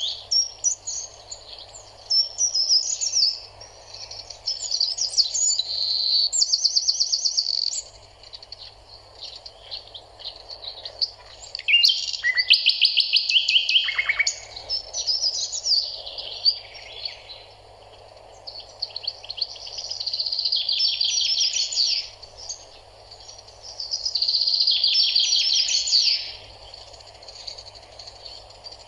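Songbirds singing in bouts of chirps and fast trilled runs, each bout a second to three seconds long, repeating with short gaps, over a steady faint background noise.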